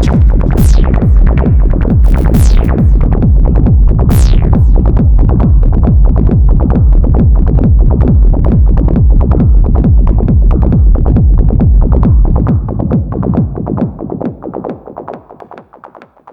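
Acid techno played live on a Novation Circuit Tracks groovebox with Behringer Crave and Korg microKORG synths: a steady pounding drum-machine beat under a pulsing sequenced synth line, with a few high downward-sweeping zaps in the first four seconds. About twelve seconds in the kick and bass drop out and the remaining synth pulses fade away toward the end.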